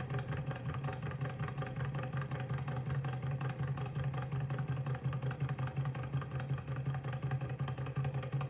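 Small hot-air Stirling engine model running, its crank, connecting rod and flywheel making a fast, even, rhythmic clatter over a steady low hum.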